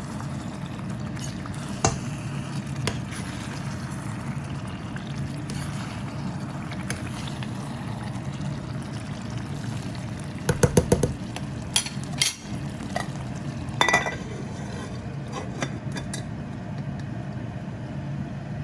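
Kitchen utensils and dishes clinking and knocking now and then, with a cluster of knocks about halfway through and another a few seconds later, over a steady low hum.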